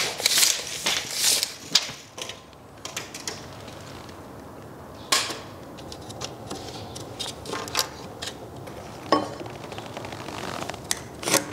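Scattered clicks and light knocks of a tape measure and a speed square being handled against a wooden wall stud: a quick run of clicks in the first two seconds, then a few single ones.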